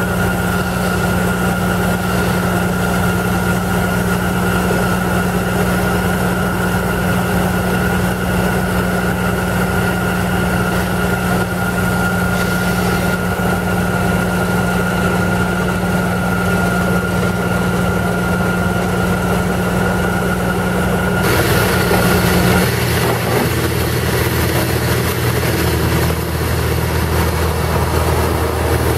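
Airmobil 432 pneumatic drilling rig running, a steady machine noise with a constant high whine; the sound changes abruptly about 22 seconds in.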